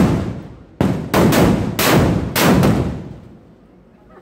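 Large firecrackers exploding in quick succession: a string of loud bangs roughly half a second apart, each trailing off, dying away about three seconds in.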